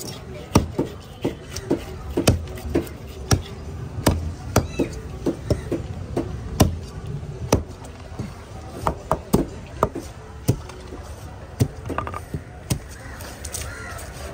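Heavy cleaver chopping a mahi-mahi into pieces on a wooden cutting board: a run of sharp, irregular chops, about one or two a second.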